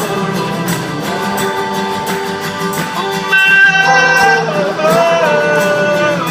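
Live rock band playing an instrumental stretch with guitars prominent, between sung lines. About halfway through, a louder held high melody line comes in.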